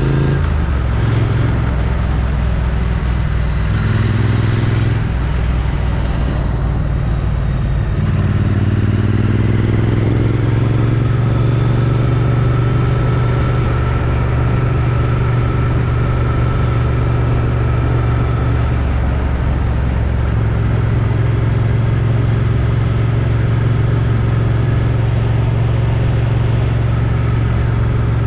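Triumph Street Twin's 900 cc parallel-twin engine through its stock exhaust, heard from a helmet chin-mounted camera while riding. The engine note rises and falls through the first several seconds as the bike changes speed, then holds a steady note at cruise, with wind and road noise underneath.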